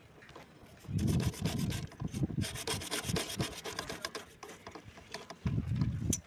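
Plastic water pipe being worked by hand, scraping and rasping in quick repeated strokes from about a second in, then a second burst near the end.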